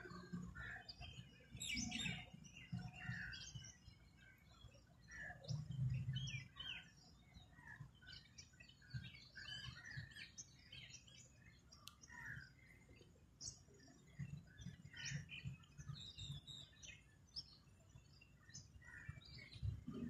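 Small birds chirping and tweeting, many short overlapping calls with no steady pattern. A few low muffled bumps come through, the loudest about six seconds in.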